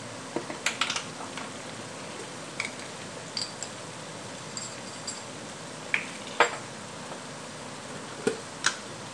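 Onion-tomato masala frying in oil in an aluminium pot: a steady sizzle, broken by scattered sharp clicks and pops.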